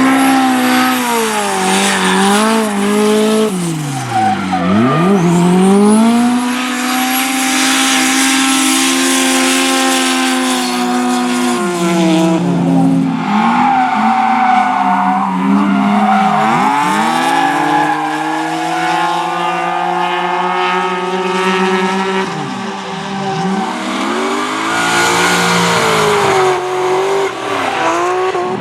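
Drift car driven sideways: the engine is held high in the revs with repeated sharp dips and climbs in pitch as the driver lifts off and gets back on the throttle, over the long hiss and squeal of the rear tyres sliding.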